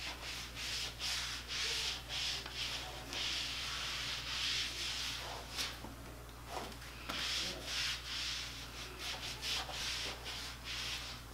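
A self-tanning mitt rubbed over bare skin in repeated back-and-forth strokes, making a soft swishing that comes in quick runs and longer sweeps.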